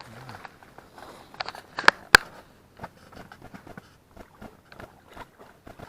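Footsteps crunching irregularly on a stony shore, with two sharp clicks about two seconds in.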